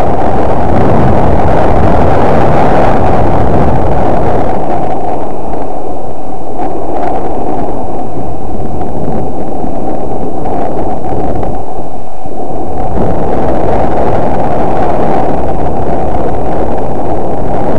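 Wind buffeting the camera microphone, a loud, steady rumbling noise that nearly fills the recording, with the higher hiss easing off for a while in the middle.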